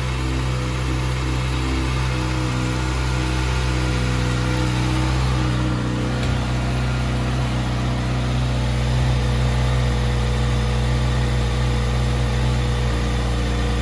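Stock Kawasaki ZX-6R 636's inline-four engine idling steadily through its stock exhaust as it warms up.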